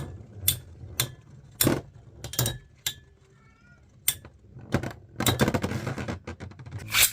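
Metal Beyblade spinning tops clashing in a plastic stadium: sharp clinks and clicks, scattered at first and coming thick and fast near the end.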